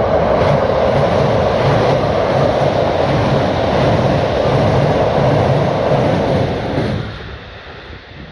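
A train passing close by at speed: a loud, steady rush of wheel and running noise that dies away sharply about seven seconds in.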